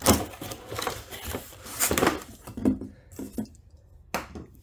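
Packing tape on a cardboard box being slit with a knife, then the cardboard flaps pulled open and handled, with scraping and crackling and a sharp knock near the end.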